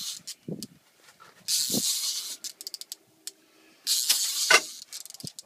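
Fishing reel and line hissing in repeated bursts, each just under a second long and about two and a half seconds apart, as a heavy rod is worked against a big sturgeon. Short low sounds fall between the bursts.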